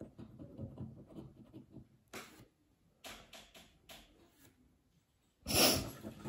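A coin scratching the coating off a paper scratch card in short, quick strokes, with gaps between them. About five and a half seconds in comes a louder, brief rushing burst.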